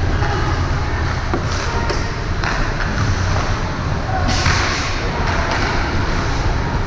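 Game sounds in a large indoor sports hall: a steady low rumble and hubbub, broken by several sharp thuds and knocks, with a strong one about four and a half seconds in.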